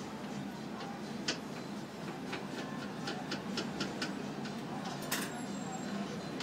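A knife clicking against a steel counter as a banana is cut into slices: irregular sharp ticks, a few a second, with a slightly louder one about five seconds in. A steady low hum runs underneath.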